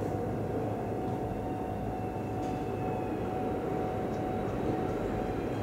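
Shinkansen track-maintenance train's flatcars rolling slowly past, a steady rumble of wheels and running gear with a faint steady whine over it.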